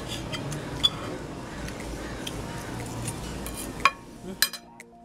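Knife and fork clinking and scraping on a ceramic plate while cutting a breaded cutlet, with background voices. A louder clatter just before the end as the knife is set down on the plate, then the background cuts off and music begins.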